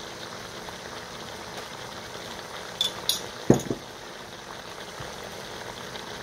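Lamb pieces bubbling steadily in a pot. About three seconds in a metal spoon clinks twice, followed right after by a dull knock.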